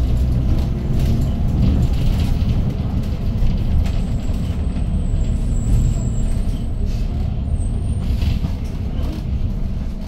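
2013 Hyundai Green City city bus driving, heard from inside the cabin: its C6GA 240 ps CNG engine runs with a steady low rumble under road noise, with occasional short clicks.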